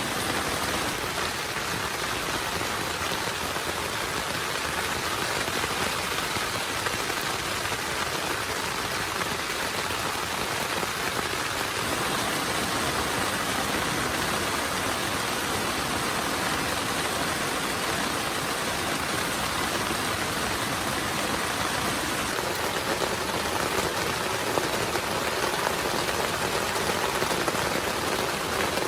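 Heavy rain falling steadily, an even hiss of rain with no breaks.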